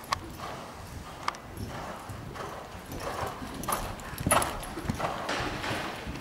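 A horse cantering on soft arena footing: muffled, irregular hoofbeats that grow louder as it passes close by, about halfway through, with a couple of sharp clicks early in the sequence.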